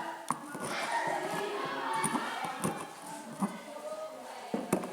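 Indistinct voices in the background with a few light knocks and taps.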